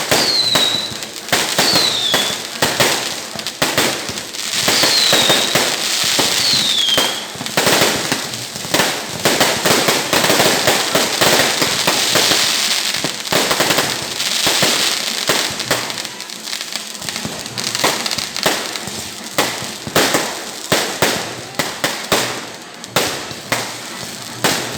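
Fireworks going off: a dense, rapid run of bangs and crackling that thins into separate bangs over the last few seconds. A few short falling whistles sound in the first seven seconds.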